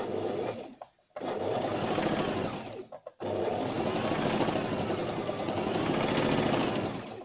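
Electric domestic sewing machine stitching a seam through fabric, running in three stretches: it stops briefly about a second in and again about three seconds in, then runs steadily until near the end.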